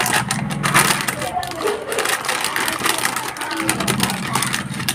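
Crinkly plastic-foil snack packet being cut open with scissors and handled, a dense run of irregular crackles and rustles.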